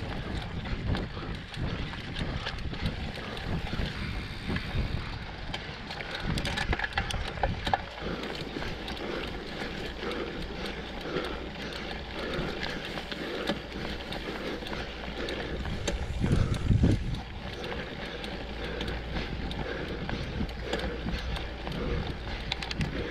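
Mountain bike being ridden over a trail, with wind buffeting the microphone over a steady low rumble and scattered knocks from the ground.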